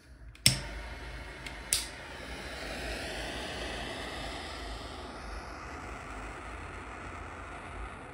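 Gas torch lit with a sharp click, a second click just over a second later, then the steady hiss of the flame heating a joint for silver soldering.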